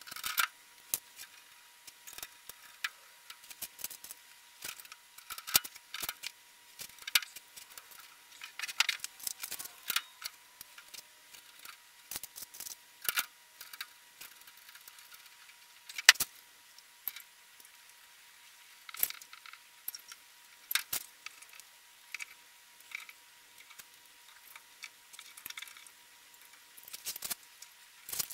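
Hand assembly of a steel media blast cabinet played back at eight times speed: a scattered run of quick, high-pitched clicks, taps and small metallic clatter from bolts, hand tools and sheet-metal panels. A faint steady thin whine runs underneath, and one sharp click about halfway through is the loudest.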